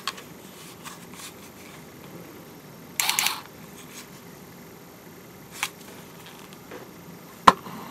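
Hands handling a plastic-bodied electric screwdriver: a brief rasping clatter about three seconds in, then a couple of sharp clicks, the loudest near the end. No motor running.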